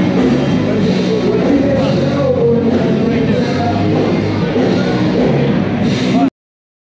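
Rock music playing, cutting off abruptly into dead silence near the end.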